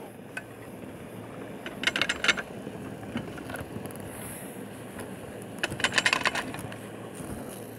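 Surface ski lift running at its bullwheel station: a steady low rumble with two short bursts of rapid metallic clicking and rattling about four seconds apart, as hangers and sheaves pass through.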